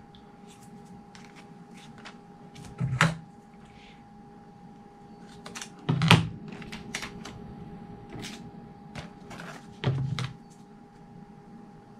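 A Coroplast (corrugated plastic) winglet being handled while packing tape is pressed over its flutes: scattered light clicks and crackles, with three louder knocks a few seconds apart.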